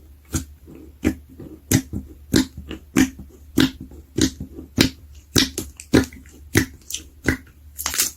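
Slime being squeezed and worked by hand, making a sharp pop or squelch about every 0.6 seconds in a steady rhythm.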